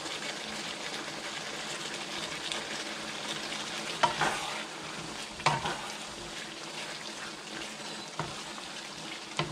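A tomato-sauce stew of chicken, potatoes, carrots and hot dog slices sizzling and bubbling in a nonstick pan, with a steady hiss, while a wooden spatula stirs it. The spatula knocks against the pan a few times, at about four, five and a half and eight seconds in.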